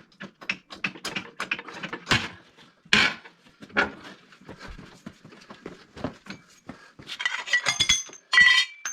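Metal tools and parts knocking and clanking in an irregular run of sharp hits, with brighter ringing metal clinks near the end.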